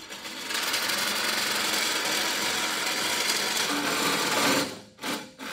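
Reciprocating saw cutting through the steel go-kart frame, a steady buzz that stops about a second before the end.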